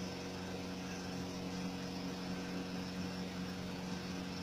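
A steady low hum of several even tones, unchanging throughout, like a small motor or electrical hum.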